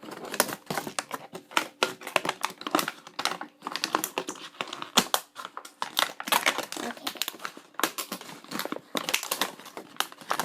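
Rapid, irregular clicks, taps and crinkles of plastic toy packaging being worked at by hand to free a small figure from its box.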